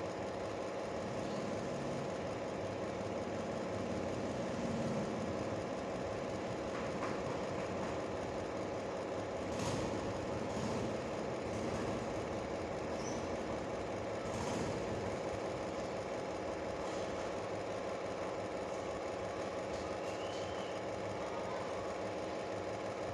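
Steady mechanical hum, with a few soft clicks about ten and fourteen seconds in.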